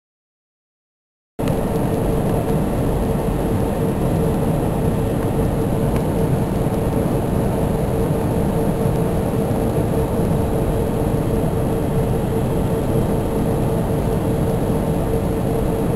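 Airbus A320 cabin noise beside the wing-mounted engine on the approach: a steady rumble of engine and airflow with a constant hum. It starts about a second and a half in, after a short dead-silent gap.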